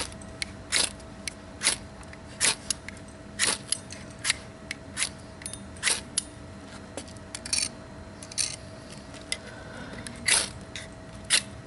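A ferro rod being struck again and again to throw sparks onto fire-cord tinder: a long run of short, sharp metal scrapes, unevenly spaced at about two a second.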